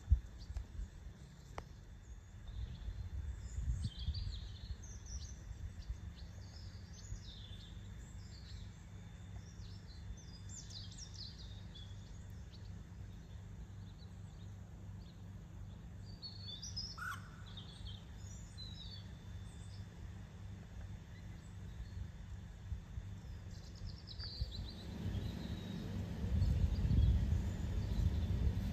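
Small birds chirping and singing in short scattered phrases over a steady low rumble of outdoor noise. The rumble grows louder near the end. A single sharp click comes right at the start.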